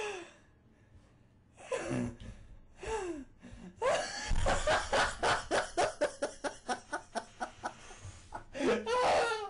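A person laughing hard: a couple of short breathy laughs, then from about four seconds in a long run of quick, even ha-ha pulses, about five a second, and a drawn-out laugh near the end.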